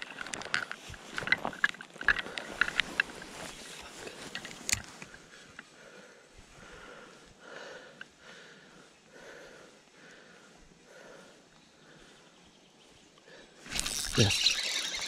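Spinning reel cranked to retrieve a lure. Loud and clicky for the first few seconds, then softer with an even repeating beat of the turning handle. A sudden louder burst of handling noise comes near the end.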